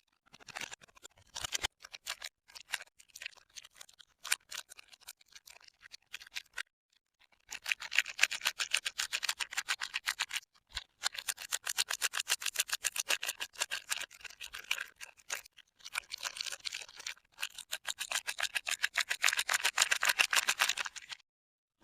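Soap packaging being unwrapped by hand: scattered crinkles and rustles at first, then dense, continuous crinkling of the wrapper from about a third of the way in, broken by a few short pauses.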